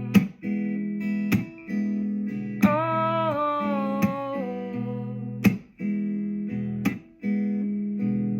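Acoustic guitar strummed in a steady pattern, one sharp strum about every second and a half over ringing chords. A wordless sung "ooh" is held over it for a moment a few seconds in.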